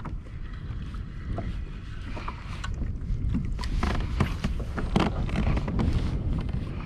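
Wind buffeting the microphone in a low rumble, with water slapping and splashing against a kayak's hull in many short strokes, loudest around the middle.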